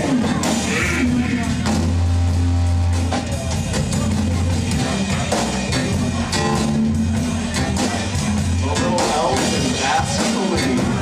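Rock music with a drum kit keeping a steady beat under held bass notes, and guitar.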